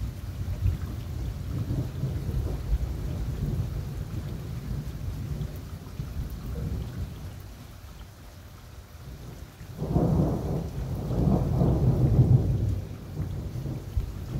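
Thunder rumbling low and long and slowly fading, then a louder peal about ten seconds in that rolls for two or three seconds before dying away.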